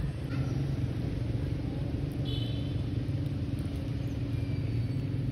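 Steady low rumble with a constant hum, like a motor running, and a short high chirp about two seconds in.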